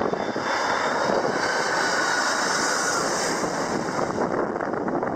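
Jet airliner engines passing low overhead: a steady rush of engine noise with a faint whine, swelling in the middle and easing off near the end.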